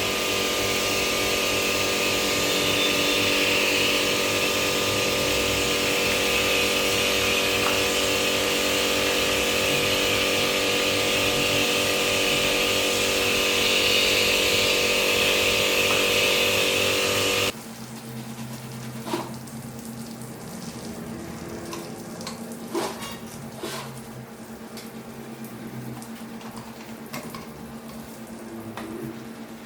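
A machine runs steadily with a loud hiss and a constant drone for about seventeen seconds, then cuts off suddenly. After that there is a quieter steady hum with scattered light taps and clicks.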